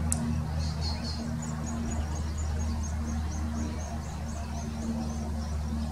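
Brown goshawk chicks begging as they are fed: a rapid series of thin, high peeps, about three a second, over a steady low rumble.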